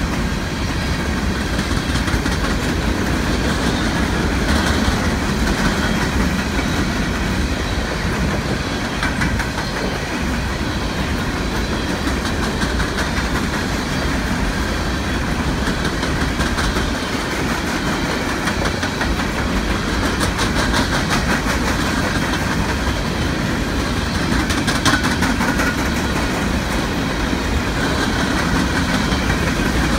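A freight train's empty coal hopper cars rolling past: a steady rumble with the wheels clicking and clacking over the rails.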